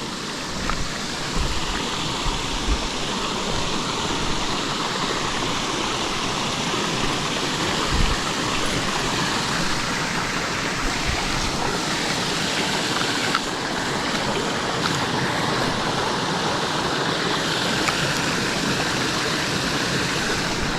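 Water rushing steadily over a small river spillway, with a low thump about eight seconds in.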